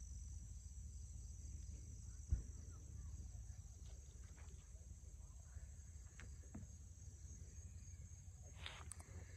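Quiet outdoor ambience: a steady high insect drone over a low rumble. There is one sharp thump a little over two seconds in and a few faint knocks later.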